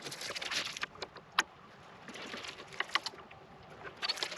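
Handling noise from working on a bike's parts and packaging: rustling, with a few sharp clicks and knocks, the sharpest about a second and a half in.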